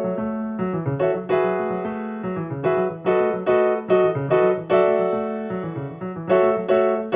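Background piano music, with chords struck in a steady rhythm over a moving bass line.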